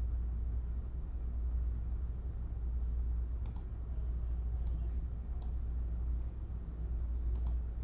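Steady low hum of room noise, with a few faint, sharp clicks scattered through the middle and near the end.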